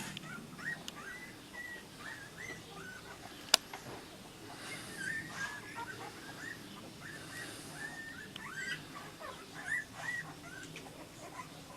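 Litter of Deutscher Wachtelhund puppies squeaking and whimpering, many short high squeals overlapping one another. A single sharp click sounds about three and a half seconds in.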